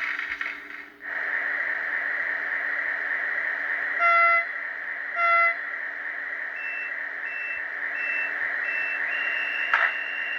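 H0 model ICE3 sound decoder (ESU v3.5) playing recorded ICE3 sounds through the model's small loudspeaker: a steady hiss over a low hum, two short horn toots about a second apart, then a run of short high beeps ending in one held beep, with a click near the end.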